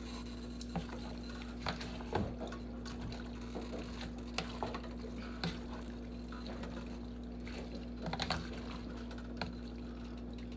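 Spoon stirring a thick tomato-based stew in a pot: wet sloshing and squelching, with scattered light knocks of the spoon against the pot, over a steady background hum.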